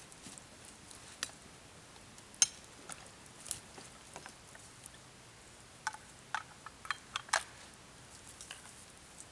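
A wood campfire crackling and popping in irregular sharp snaps, with a loud pop about two and a half seconds in and a quick run of pops around six to seven seconds in.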